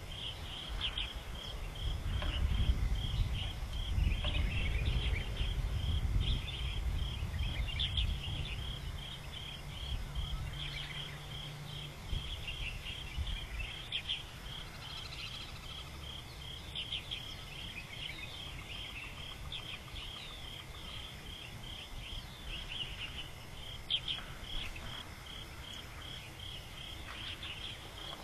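Outdoor ambience: an insect chirping in a steady, even pulse, with scattered short bird chirps. A low rumble sits under it through the first dozen seconds and is the loudest part.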